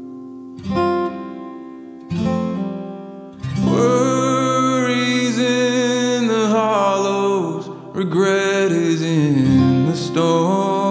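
Background music: strummed acoustic guitar, a couple of separate strums and then steady strumming with a singing voice coming in about four seconds in.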